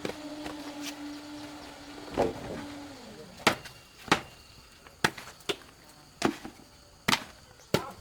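A steady low hum that drops and fades about three seconds in, then a series of about seven sharp chopping blows at uneven intervals.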